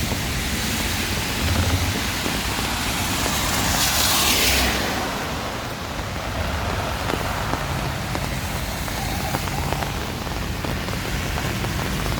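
Heavy rain with gusting wind, a steady rushing hiss with low rumbles of wind on the microphone. About four seconds in a louder, brighter rush swells up for about a second and fades.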